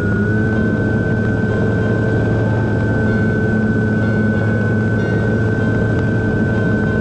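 Electric motor and propeller of a Dynam Sukhoi SU-26M radio-controlled aerobatic plane in flight, heard from a camera on the airframe: a steady high whine over a dense rushing drone, the whine stepping slightly higher just after the start.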